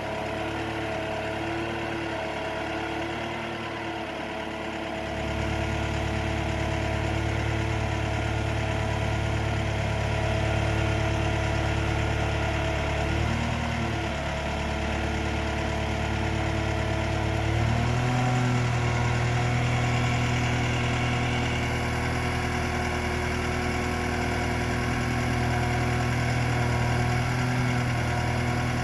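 Engine of an articulated aerial lift truck running steadily, getting louder about five seconds in, with its tone shifting briefly around fourteen seconds and again near eighteen seconds.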